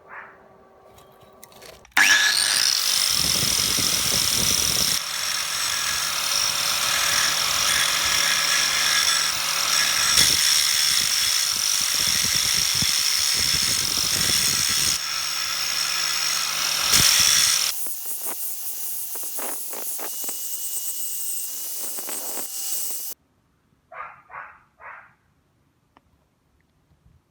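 A handheld power tool starts up and runs steadily with a high whine for about fifteen seconds, then runs lighter for a few seconds before cutting off abruptly.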